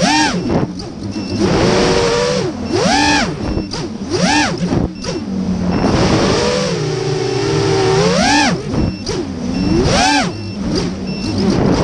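Quadcopter drone's electric motors whining over rushing air, the pitch swooping sharply up and down several times as the throttle is punched and cut.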